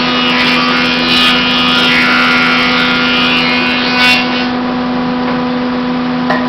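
Powermatic model 221 20-inch woodworking planer running with a steady hum. A louder, harsher noise lies over the hum for the first four seconds or so and ends about four seconds in.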